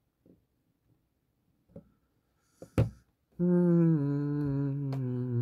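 A sharp click, then a man humming a long, low "hmm" with closed lips, starting about three and a half seconds in. It drops a step in pitch at once and then sinks slowly lower.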